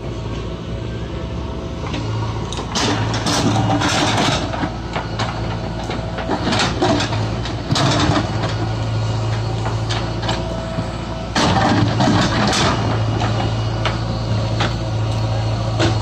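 JCB 3DX backhoe loader's diesel engine running steadily while the backhoe digs. Several times the bucket scrapes and clatters through soil and stones.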